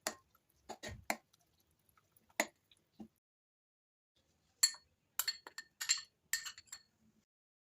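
A spoon clinking against a bowl in separate light strikes: a few scattered ones in the first three seconds, then a quicker run of ringing clinks from about four and a half seconds in.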